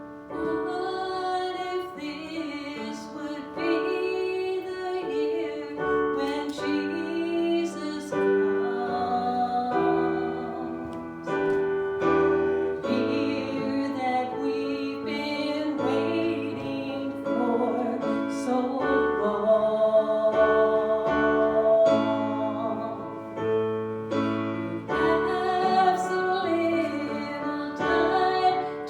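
Piano music with singing.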